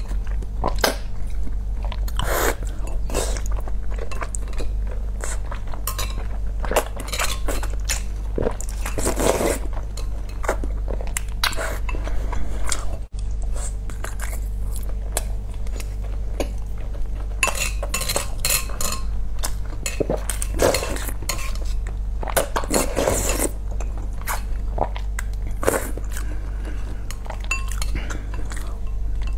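Close-up eating sounds: spicy black bean noodles slurped and boiled eggs chewed, with chopsticks and a spoon clicking and scraping against the bowl. It runs as a string of short clicks and brief slurps over a steady low hum.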